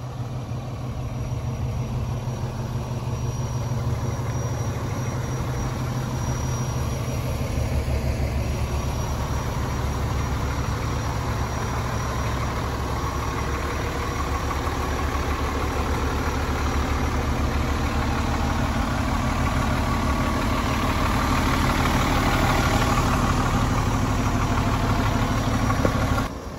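Fire engine's diesel engine idling steadily, growing gradually louder toward the end.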